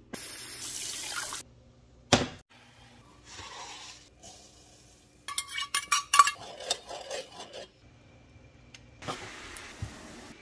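Cooking sounds in short separate bursts: liquid pouring into a small saucepan, then a steel measuring cup and the pot clinking and clattering, with a single knock about two seconds in.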